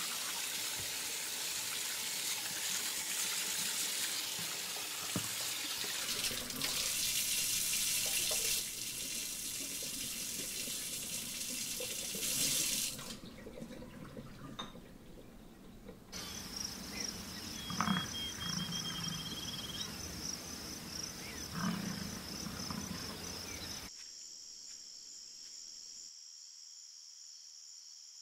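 Rushing water for about the first thirteen seconds, cutting off suddenly. In the second half a steady, finely pulsing high trill like night insects runs on, with a few scattered clicks and knocks.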